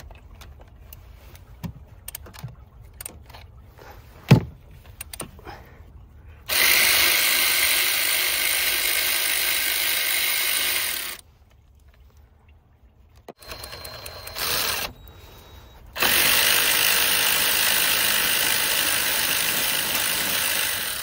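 Cordless electric ratchet backing out the mounting bolts of a transmission fluid cooler. First a few light clicks and taps as the tool is fitted, then it runs steadily for about five seconds. After a pause comes a short burst, then another steady five-second run.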